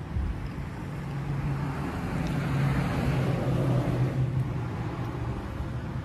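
A road vehicle passing: a low engine hum and tyre noise swell to a peak about three seconds in, then fade.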